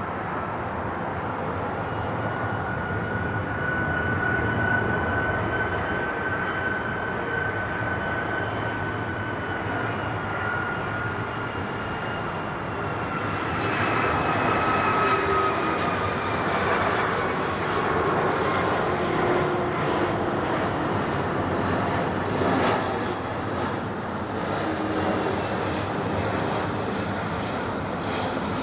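Boeing 757 jet airliner on approach with its landing gear down, its jet engines giving a steady roar with a high whine. The whine slowly falls in pitch from about halfway through as the plane passes overhead.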